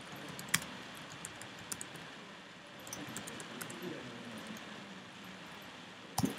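Typing on a computer keyboard: scattered, irregular keystroke clicks, with a louder click near the end.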